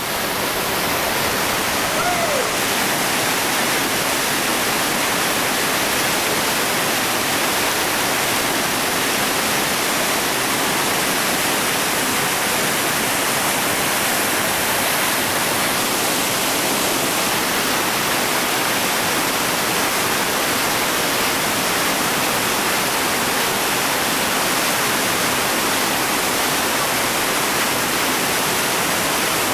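Whitewater rapids rushing steadily: churning water pouring over and around boulders, one continuous, even noise.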